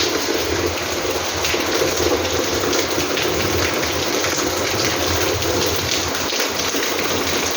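Heavy rain falling steadily: a dense, even wash of noise with many drops striking close by.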